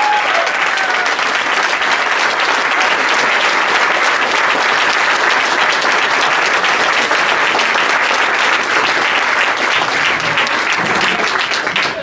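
Audience applauding: many hands clapping in a dense, steady patter that drops off at the very end.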